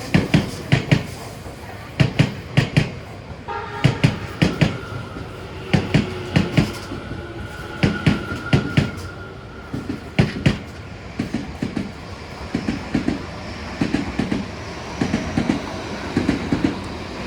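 Tobu Tojo Line train rolling slowly past, its wheels clattering over the rail joints in repeated groups of sharp clicks. A steady whine joins about three and a half seconds in and fades a few seconds later.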